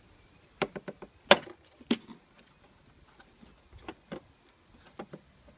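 Plastic clicking and knocking as the cabin pollen filter and its plastic housing tabs are worked loose by hand: a quick cluster of sharp clicks about a second in, one of them much louder, then a few fainter clicks later.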